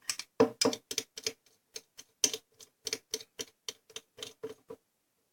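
Quick sticky clicks and taps, about four or five a second, from a runny detergent-and-salt slime mixture being worked in a container; the mix has failed to thicken.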